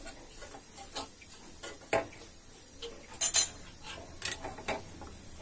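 Metal spoon scraping and clinking against a small black kadhai while sugar is stirred as it melts, in scattered knocks, with a louder clatter a little past three seconds in.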